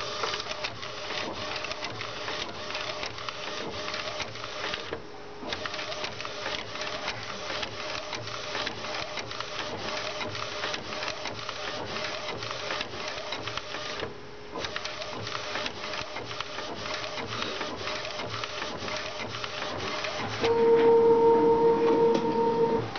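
Epson T1100 inkjet printer, converted for direct-to-garment printing, printing on a t-shirt: the print head carriage shuttling back and forth with a rapid, regular clatter, pausing briefly twice. Near the end a louder, steady motor hum sets in as the printed shirt is fed out.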